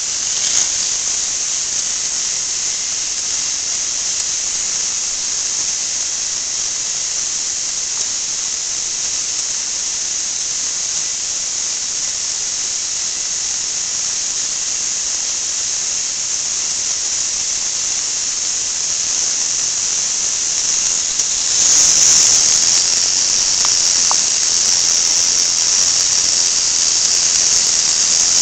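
Motor-driven chain lift of a K'nex roller coaster model running: a steady high-pitched whine and hiss that gets louder about 22 seconds in.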